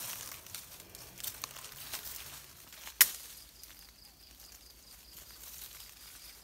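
Longan tree leaves and branches rustling and crackling as a hand handles heavy fruit clusters, with one sharp click about three seconds in. A faint, steady high tone runs through the second half.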